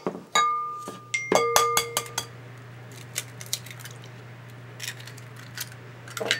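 Dishes clinking with short ringing tones, several strikes in the first two seconds, then a few light clicks as an egg is cracked into a mixing bowl and the shell is dropped into a small glass dish.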